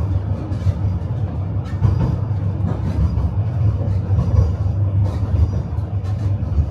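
Tram running on its rails: a steady low rumble of the car in motion, with a few sharp clacks of the wheels over rail joints or points.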